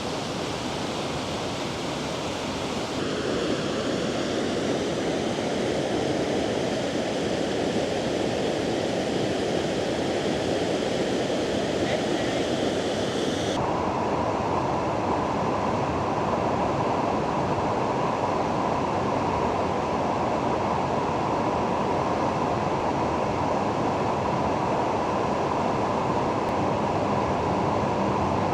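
Steady rush of river water flowing over rocks. Its tone changes abruptly twice, about three seconds in and about halfway through.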